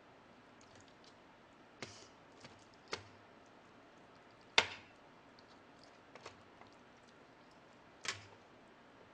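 Chopsticks clicking and tapping against a pork bone and the dish while meat is picked off the bone: a handful of sharp, separate clicks with fainter small taps between, the loudest about four and a half seconds in.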